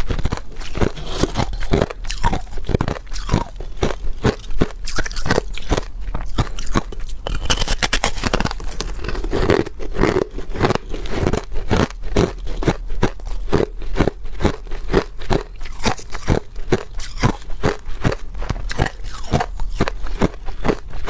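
Close-up crunching and chewing of hard ice chunks, a dense run of sharp cracks several times a second.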